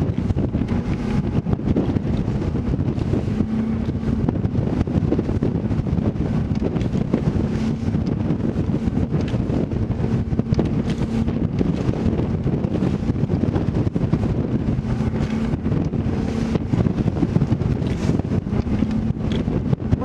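Phoenix bass boat running at speed through rough chop: heavy wind buffeting on the microphone over the steady drone of its 250-horsepower outboard, with the hull knocking and spraying through the waves.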